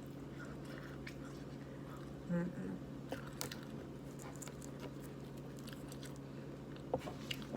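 Chewing a mouthful of food, with soft mouth smacks and clicks scattered through, over a steady low hum.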